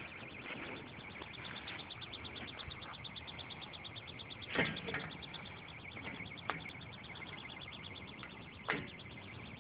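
A few sharp knocks and clunks as a small model rocket is handled and fitted onto its launch rod and pad, over a steady, fast, high-pitched pulsing in the background.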